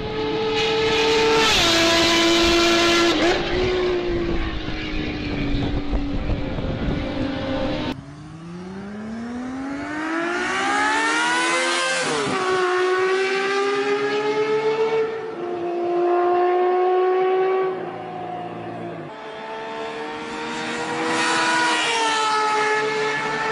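Motorcycle engine with a Ferrari-like exhaust note, revving high. The pitch holds, drops, climbs steeply for several seconds as it accelerates, then eases back, in a few separate stretches.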